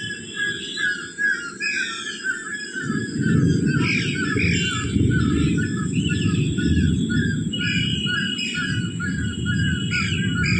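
Many birds chirping and calling, with a steady string of short repeated chirps. From about three seconds in, a loud, low rumbling noise rises underneath the birdsong.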